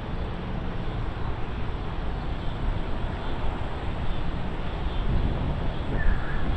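Low, uneven outdoor rumble of wind buffeting the microphone, growing louder near the end.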